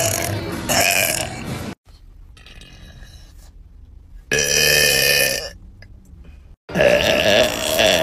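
A woman's long, deep burps, three of them: one trailing off just under two seconds in, one about four seconds in lasting about a second, and a third starting near the end. Each is cut off abruptly.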